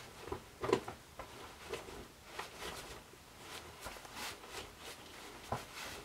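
Soft, irregular rustles and light knocks of a person moving about in a plush mascot costume, the loudest knock about a second in.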